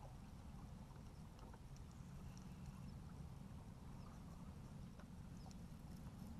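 Near silence: a faint low rumble with scattered light ticks and clicks from a fishing reel being cranked on a boat.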